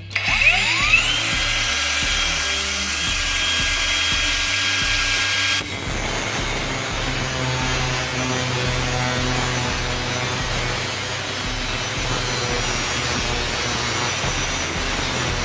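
INGCO 20V cordless angle grinder starting up with a rising whine that levels off into a steady high whine. About six seconds in, the disc bites into a clamped 1x1 square steel tube and the sound turns to a continuous gritty cutting noise.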